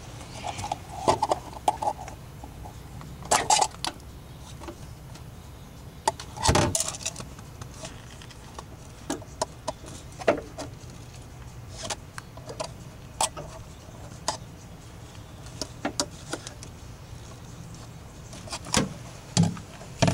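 Scattered clicks, taps and rattles of a car's factory rear speaker and its wire being handled and worked free from the rear deck, with a few louder knocks.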